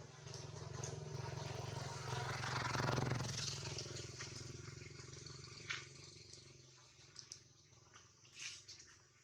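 A motor vehicle's engine hum, swelling to a peak about three seconds in and then fading away, as of a vehicle passing by, with a few faint clicks near the end.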